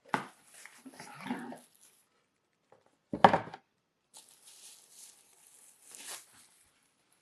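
A dog barks once, loud and short, about three seconds in, with packaging rustling before and after it.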